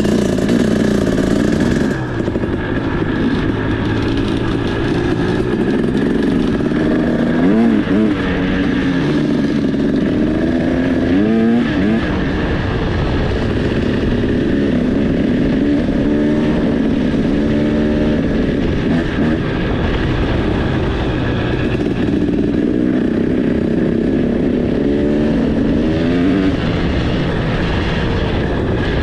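Two-stroke enduro dirt bike engine running loud and steady, with several quick rises and falls in revs in the first half.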